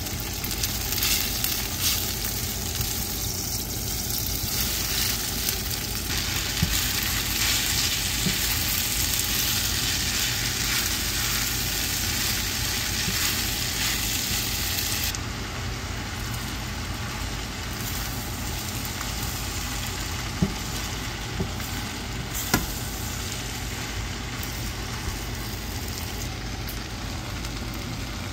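Udon noodles sizzling as they fry in a nonstick pan, stirred with a silicone spatula, with a few sharp clicks.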